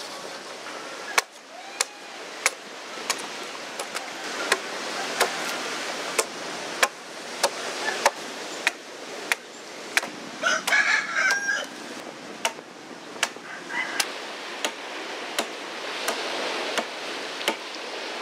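Steady, evenly paced chopping strikes of a hand blade into timber, about three blows every two seconds, as the wood is shaped. A rooster crows briefly about halfway through.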